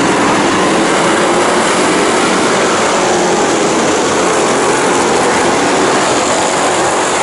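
A pack of dirt-track stock cars running together at racing speed: a loud, steady, dense engine noise with no single engine standing out.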